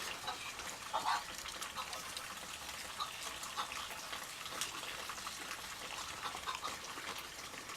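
Steady rain falling, with many small drop ticks over an even hiss.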